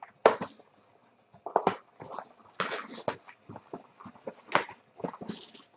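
Plastic shrink wrap being peeled off a trading-card box and crumpled by hand: irregular crinkling and crackling rustles, with sharper bursts just after the start and about four and a half seconds in.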